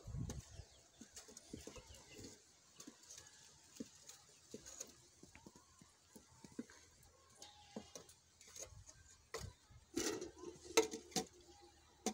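Wooden stirring stick knocking and scraping in a metal cooking pot: soft, irregular taps and clicks. A brief, louder pitched sound with a few sharp knocks comes about ten seconds in.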